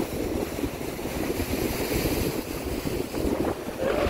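Wind buffeting the microphone in uneven gusts, with waves washing against the rocks of a stone breakwater.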